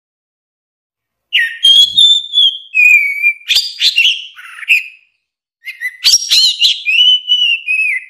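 Orange-headed thrush singing: two phrases of clear whistled notes mixed with quick high chirps and trills. The first begins about a second in after silence, and the second follows a short pause a little past halfway.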